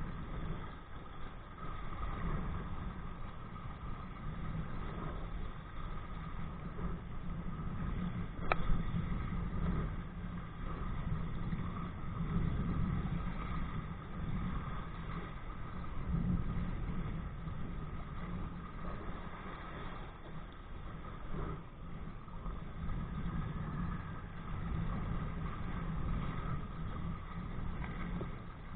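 Steady rumbling rush of wind and water on a kite-towed kayak, heard through a body-worn camera's microphone, with one sharp click about eight and a half seconds in.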